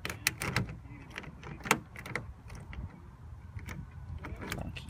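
Irregular sharp clicks and light knocks with no engine running; the loudest single click comes a little under two seconds in.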